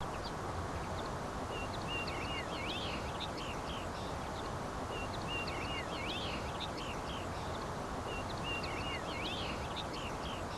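Birds chirping over a steady outdoor ambience, the same short phrase of calls recurring three times about every three and a half seconds, as in a looped nature soundtrack.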